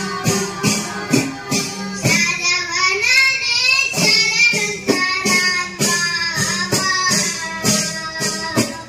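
Children singing a Chinthupattu song together into microphones, keeping time on small hand drums (chinthu) struck in a steady beat of about two to three strokes a second. A low steady drone note sits under the first couple of seconds, and the voices take up the melody about two seconds in.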